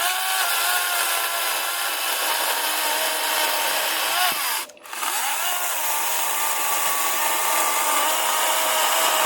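ReliaRoads 40V battery chainsaw running and cutting through a hard cherry log about 5 inches thick, with a steady electric motor whine over the chain's rasp. The saw stops briefly a little before halfway, then spins back up and cuts again.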